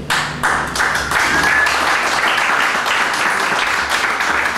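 Audience applauding, a dense clatter of many hands clapping that starts abruptly as the music stops.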